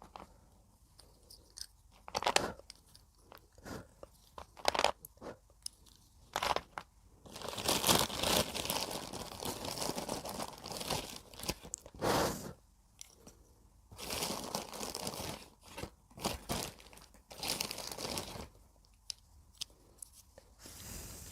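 Broken slate pencil pieces being bitten and chewed close up: a few separate sharp crunches at first, then longer bouts of gritty grinding crunching from about seven seconds in, stopping and starting several times.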